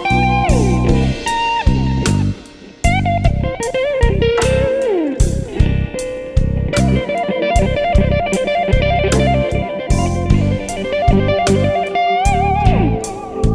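Slow electric blues band playing an instrumental passage: a lead electric guitar with bent notes and vibrato over bass and drum kit. The band drops out for a moment about two and a half seconds in.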